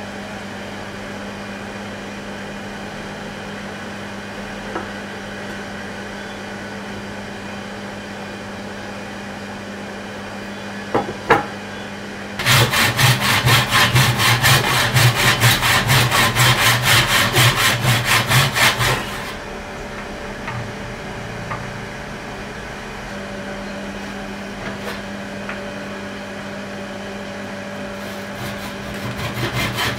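Hand saw cutting a block of wood for a knife handle, in quick, even back-and-forth strokes for about six seconds around the middle, then starting again near the end. A steady low hum runs underneath, and a couple of sharp knocks come shortly before the first sawing.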